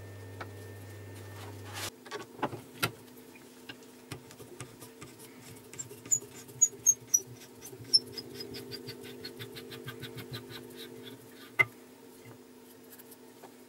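Wooden awl handle being twisted onto a threaded steel rod clamped in a bench vise: a fast run of small ticks and creaks as it turns, with a few sharp knocks.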